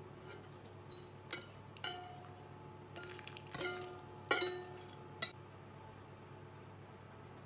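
Wire whisk clinking against a metal mixing bowl about five times while the filling is scraped out, the bowl ringing briefly after the louder knocks.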